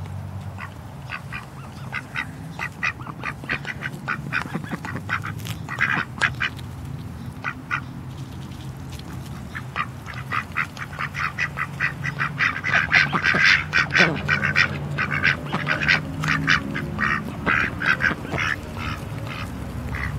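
A small flock of domestic ducks quacking close by in quick runs of short calls, busiest and loudest about halfway through.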